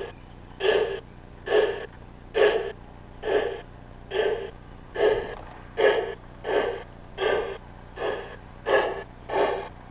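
Steam exhaust chuffs from the Zimo MX690S sound decoder's speaker in an LGB 99-6001 G-scale model steam locomotive. They come as an even beat of a little over one chuff a second, quickening slightly toward the end, over a faint steady hum.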